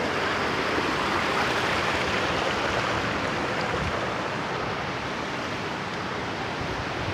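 Waterfall water rushing and splashing in a steady, dense hiss.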